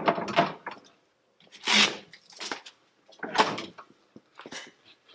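Heavy Holmatro hydraulic rescue tools being handled in a fire engine's equipment compartment, with a series of separate clunks and scrapes as the cutters are set back in their bracket and the spreaders lifted out. The loudest is a scraping noise about a second and a half in.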